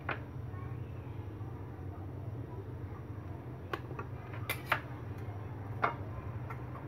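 A few sharp knocks and clicks of kitchen tools and apples being set down and picked up on a plastic cutting board, a cluster of them a little after the middle, over a steady low hum.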